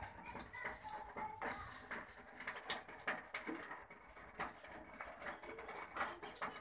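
Irregular light clicks and taps, many scattered sharp ticks on hard surfaces over a faint hiss.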